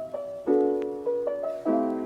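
Background piano music: sustained chords struck about once a second, with a melody of single notes above them.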